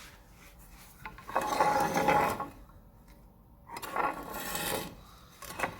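Two rasping scrapes, each about a second long, the first about a second in and the second past the middle.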